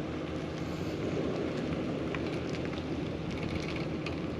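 Truck engine running at low speed while reversing a boat trailer, with a steady background hiss and a few small ticks.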